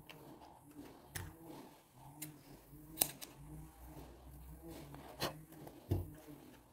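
A handful of sharp clicks and soft scrapes from a wire slicker brush and hands working the wool-yarn fur of a crocheted toy dog, the loudest clicks about three seconds in and near the end.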